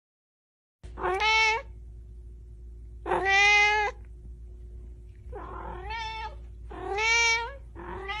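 A domestic cat meowing four times, each meow under a second long and about two seconds apart, with a faint steady hum beneath.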